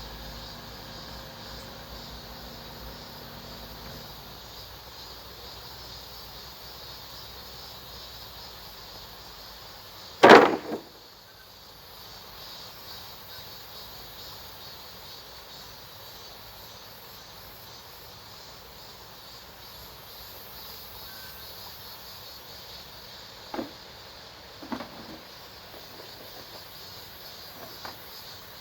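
Steady outdoor background with a faint high hiss and a low hum that stops about four seconds in. It is broken about ten seconds in by one loud short bang that doubles briefly, with a few faint knocks near the end.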